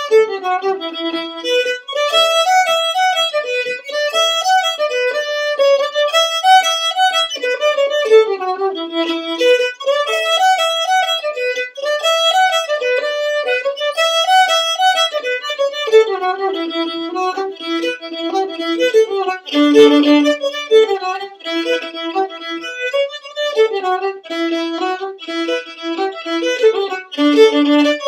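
Unaccompanied fiddle playing a traditional jig, a quick unbroken run of bowed notes.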